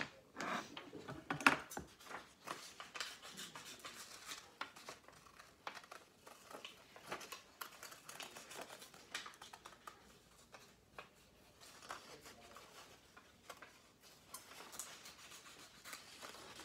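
Scissors snipping through colored paper, a run of short, irregular snips with light paper rustle as a shape is cut out.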